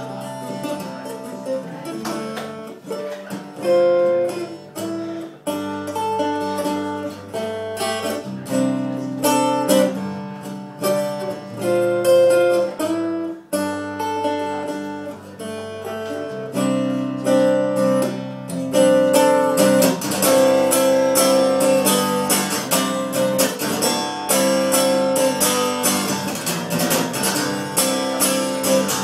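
Acoustic guitar played as a continuous stretch of plucked and strummed chords, with a low bass line under the higher notes.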